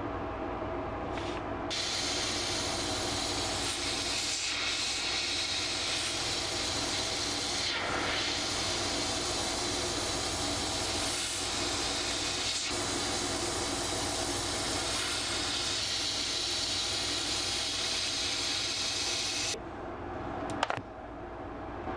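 Airbrush spraying paint through a mesh stencil onto a lure body: a steady hiss of air and paint that starts about two seconds in and cuts off a couple of seconds before the end, over a low steady hum.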